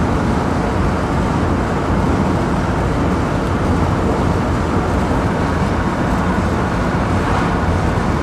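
Steady engine and road noise heard inside the cabin of a 1967 Alvis TF21 with its straight-six cruising at about 45 mph in overdrive under very light load, the engine turning at little more than a fast idle. The noise is an even, low rumble with no changes.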